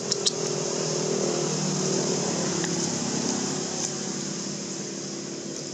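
A motor vehicle's engine running nearby, slowly fading, over a constant high hiss, with two sharp clicks just after the start.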